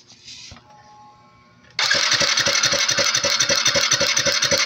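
Small motorcycle engine with its carburettor removed being cranked over to check for spark at the plug. The fast, even cranking starts suddenly about two seconds in, after near quiet with a few light handling noises.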